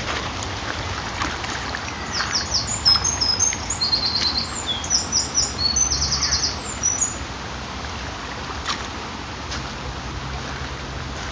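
Small birds chirping in quick runs of short high notes, starting about two seconds in and stopping after about seven seconds, over a steady outdoor rush of noise.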